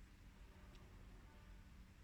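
Near silence: room tone with a faint low hum, and one faint short tick about three-quarters of a second in.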